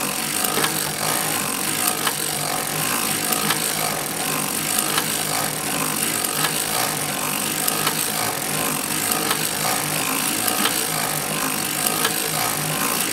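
Hand-cranked circular sock knitting machine cranked steadily, its latch needles clicking and clattering through the cams as the cylinder turns and knits rows of yarn.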